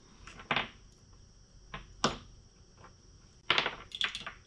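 A few short clicks and rustles of fishing tackle being handled on a workbench, with a quick cluster near the end as things on the bench are picked up and moved.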